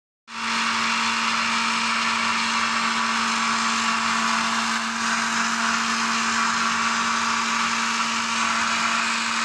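Electric blender motor, likely the Miyako under repair, running steadily at constant speed with an even high whirring and a steady hum underneath.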